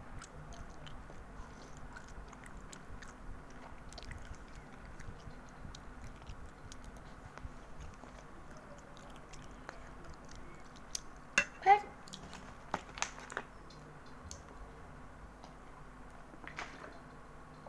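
A girl chewing and slurping spicy instant noodles, with soft wet mouth clicks. A little past the middle come a few short louder sounds, one of them a brief pitched vocal sound.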